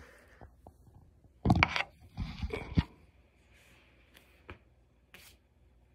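A phone being handled and set down on a hard floor: two short bursts of scraping and knocking against the floor between about a second and a half and three seconds in, then a couple of faint clicks.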